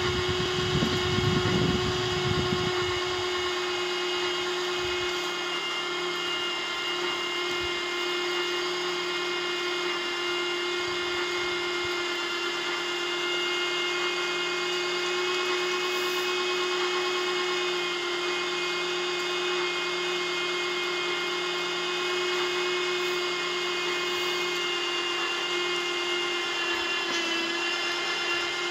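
Drive motor of a Salzgitter FTM 25/6 telescopic mast whining steadily at one even pitch as it runs the mast. There are low rumbling bumps in the first couple of seconds.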